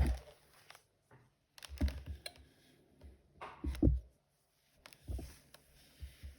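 Irregular soft knocks and clicks, about five separate groups, from handling a fabric strip and a household iron on an ironing board while folding the edges to the middle crease and pressing them.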